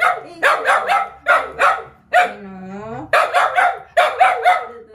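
Mixed-breed dogs barking at food they are begging for, in quick runs of two or three loud barks. About two seconds in, a long, wavering whining howl breaks the barking.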